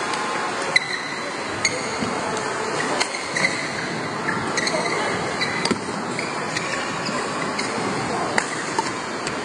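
Badminton hall din: steady crowd chatter, with scattered sharp racket-on-shuttlecock clicks and brief high shoe squeaks on the court floor.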